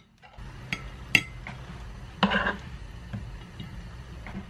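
Metal spoon and fork clinking and scraping against a ceramic plate while tender roast lamb is served, a few separate light clinks with the sharpest about a second in.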